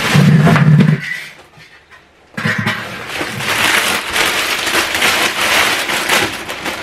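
Plastic bags and plastic-wrapped packs crinkling and rustling while being handled, starting about two and a half seconds in and running on in dense crackles. Before that, a short low-pitched sound fills the first second, followed by a brief lull.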